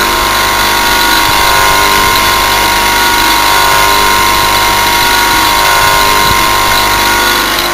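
Western Electric 1.1 kW single-phase capacitor-run motor running steadily at full speed, about 2800 rpm, with a pulley on its shaft: an even hum with a steady whine, a sound judged a nice one.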